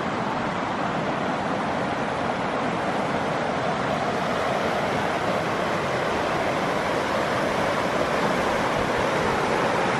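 A mountain river rushing over rocks: a steady rush of water that grows a little louder over the span.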